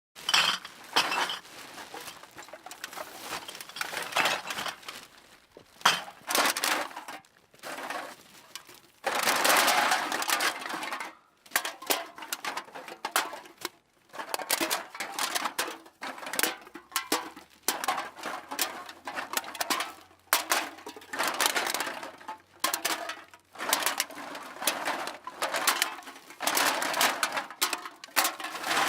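Metal cans being dropped and shoved into a bag: repeated clinks and clatters of cans knocking together, mixed with rustling of the bag, in uneven bursts with brief pauses.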